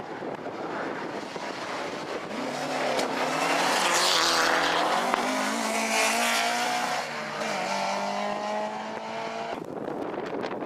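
Ford Escort Mk2 rally car driven hard past close by, its engine revving loudly with tyre noise as it comes through. The engine note runs strong then cuts off abruptly near the end, leaving another rally car's engine further away.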